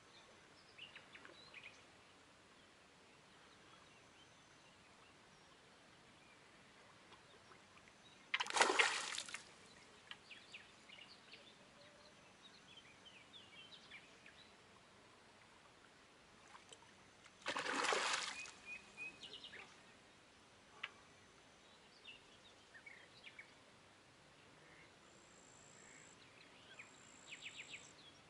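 Two splashes on the river water, about nine seconds apart, each lasting about a second, over a faint outdoor background.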